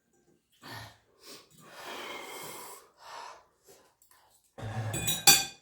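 Heavy breathing, sniffing and gasping from someone whose mouth is burning from extremely spicy ramen, in several short breaths and one longer exhale. A louder voiced groan or exclamation comes near the end.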